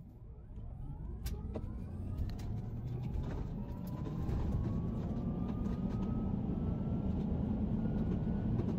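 Tesla Cybertruck's dual electric motors whining under full acceleration from a standstill, several tones rising steadily in pitch, heard inside the cab. Underneath, a low rumble of road noise grows louder as speed builds.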